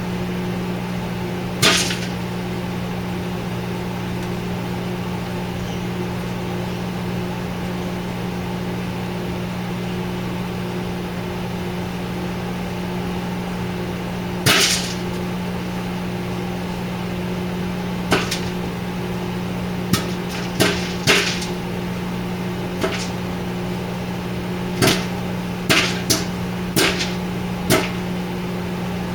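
A 1000-watt microwave oven running with a steady hum while bare popcorn kernels in a paper-plate-covered plastic bowl begin to pop. There are single sharp pops about 2 and 14 seconds in, then the pops come more often, several a second apart, toward the end, as popping gets under way.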